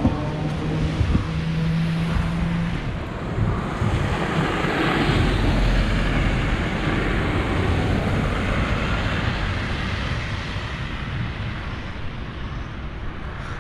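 A Sapporo streetcar rolling past close by with a steady low motor hum in the first few seconds, then traffic noise as a car passes on the snowy road about five seconds in, fading toward the end.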